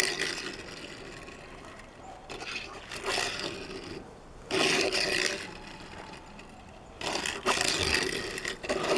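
Hot Wheels die-cast toy bus pushed and spun by hand across a flat board, its small wheels rolling and skidding in four short rushes of rolling noise with quieter gaps between.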